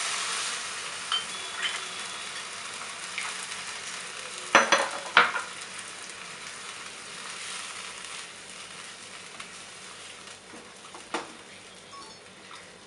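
Soaked, drained basmati rice sizzling in hot oil with sautéed mushrooms in a nonstick wok as it is stirred with a wooden spatula. The sizzle slowly dies down, with a few sharp knocks of the spatula against the pan, two about four and a half seconds in and one near eleven seconds.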